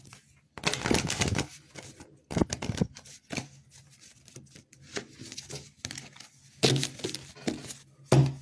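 Tarot cards being handled and shuffled: a few short rustling, flicking bursts, the longest about a second in.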